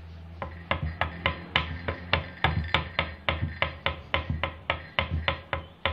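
Hand-drum rhythm opening an Umbanda ponto: regular strikes, about three to four a second, over a low steady hum.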